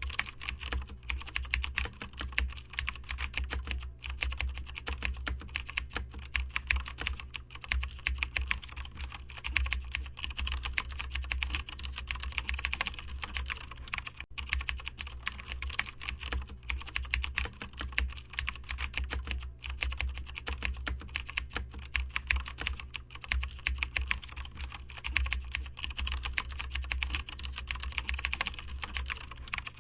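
Continuous typing on a computer keyboard: a dense, uneven run of keystroke clicks over a steady low hum.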